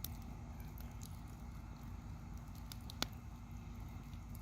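Small campfire crackling faintly, with scattered small pops and one sharper pop about three seconds in.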